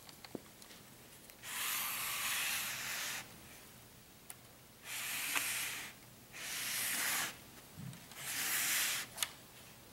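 Four bursts of dry rubbing noise, each about a second long, the first a little longer, with a few short sharp clicks between them.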